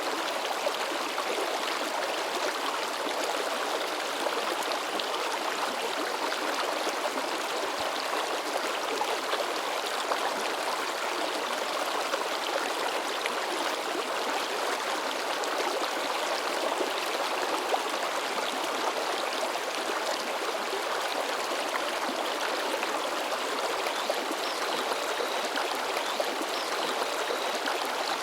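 Shallow river babbling and splashing over rocks: a steady, even rush of moving water.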